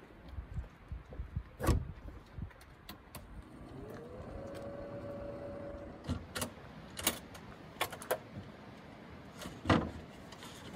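A small electric fan mounted in the van's rear hatch spins up, its hum rising in pitch and then holding steady for about two seconds, amid scattered clicks and knocks. Later come several sharp wooden knocks and clatter as a plywood slide-out platform in the cargo area is handled.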